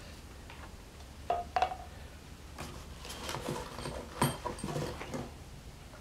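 Scattered light clicks and metallic clinks of bolts and a small hand tool being handled at a pulley bushing, a couple about a second and a half in and a busier run later, the sharpest just after four seconds with a brief ring.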